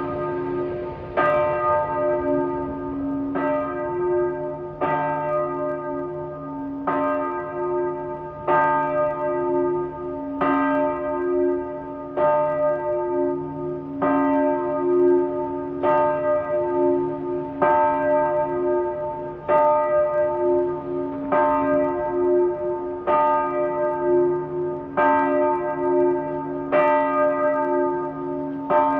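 Small church bell tolling: about sixteen even clapper strokes, one every two seconds or so, each ringing on into the next. The recording is played back at half speed.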